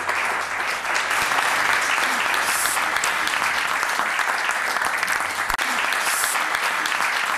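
Studio audience applauding steadily, a dense clapping with no breaks.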